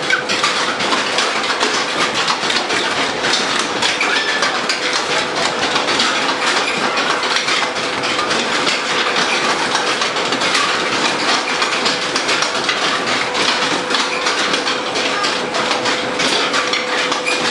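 Fairground Whip ride machinery running: a steady, loud mechanical rattle and clatter over a constant hum.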